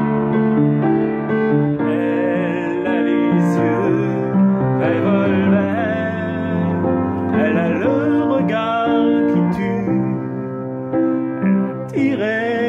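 Upright piano playing a slow ballad accompaniment: sustained chords with a melody line above.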